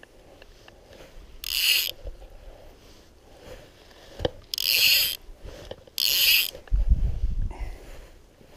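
Click-and-pawl fly reel buzzing in three short bursts of dense ratcheting as its spool spins, with a sharp click between the first two. A loud low rumble follows near the end.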